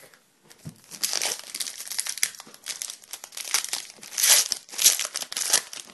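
Plastic-foil wrapper of a 2011-12 Upper Deck Artifacts hockey card pack being torn open and crinkled by hand, a run of crackling from about a second in, loudest near the end.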